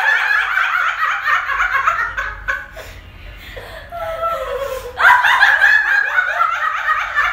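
A group of women laughing hard together in rapid, high-pitched peals. The laughter dies down about two and a half seconds in, then breaks out loudly again about five seconds in.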